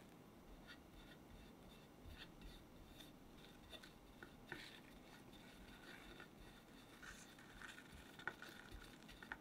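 Faint soft scraping of a metal spatula spreading and smoothing whipped cream on a cake, with scattered light ticks, a few sharper ones in the second half as the side is iced on a turning cake stand.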